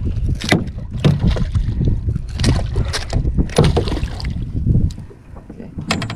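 A hooked gar thrashing at the surface beside a small boat's hull, a series of sharp splashes over a steady low wind rumble on the microphone. The rumble drops away about five seconds in.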